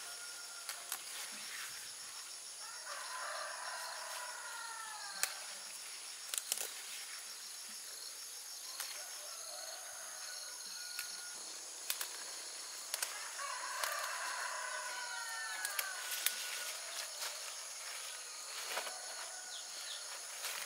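Countryside ambience: a steady high-pitched chorus of crickets and other insects, with two runs of falling bird calls, one a few seconds in and one past the middle. Scattered sharp snaps and rustles come from leaves and stalks being picked by hand.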